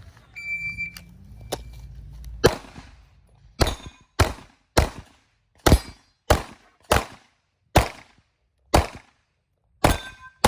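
A shot-timer beep starts the run, and about two seconds later a Glock pistol fires about a dozen shots at an uneven pace, some in quick pairs and some more spaced, as the shooter moves through a practical shooting stage.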